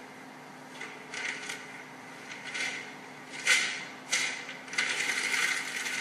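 A sheet of paper rustling and crinkling as it is handled: a series of short rustles, the sharpest about three and a half and four seconds in, then a longer crinkling near the end as it is pressed between the hands.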